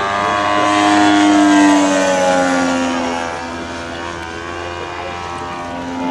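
Engine of a radio-controlled scale model biplane flying past overhead: a steady, buzzing drone that is loudest about a second and a half in. Its pitch drops slightly as the plane passes, then holds while the sound fades a little.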